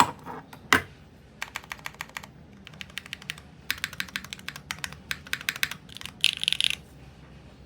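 Typing on a Nightowl60 mechanical keyboard with Sarokeys BCP keycaps: two loud single key clacks in the first second, then bursts of fast typing, ending with a quick dense flurry of keystrokes about six seconds in.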